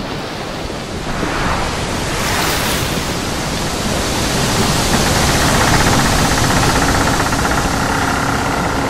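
Rushing noise of ocean waves breaking, swelling about a second in and then holding steady.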